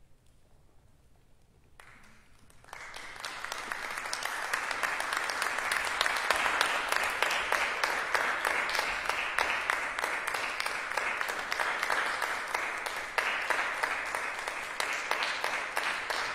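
Audience applauding in a large theatre: near quiet at first, then clapping breaks out between two and three seconds in, swells over about a second and carries on steadily.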